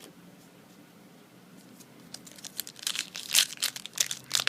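A foil booster pack being torn open, with crinkling of the wrapper: quiet for the first two seconds, then a run of sharp, irregular crackles that grow louder toward the end.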